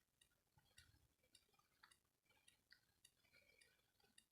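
Near silence: room tone with a few faint, irregular ticks.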